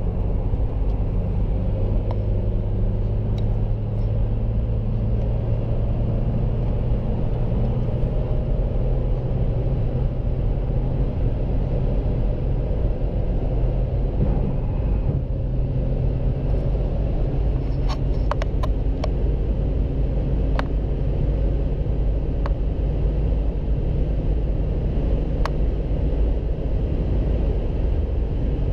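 Steady low rumble of a running vehicle, with a few faint clicks in the second half.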